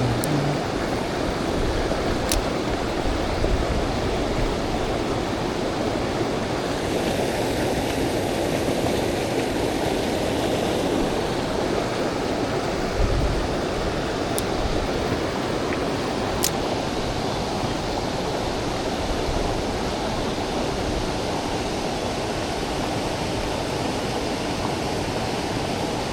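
Mountain stream water rushing steadily, with a few faint sharp clicks.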